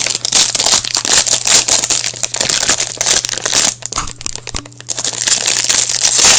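Foil trading-card pack wrappers crinkling and tearing as packs are ripped open and handled, a dense irregular crackle that dips briefly about four seconds in.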